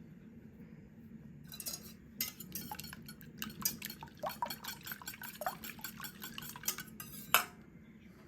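Utensils stirring, clinking and scraping against dishware in a quick, irregular run of clinks for about six seconds, ending in one louder knock, over a steady low hum.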